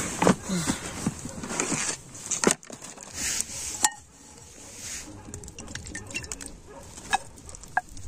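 Rustling of nylon tent fabric and a backpack being rummaged through, then two sharp clinks as a stainless steel plate is handled and set down, with a few lighter handling ticks after.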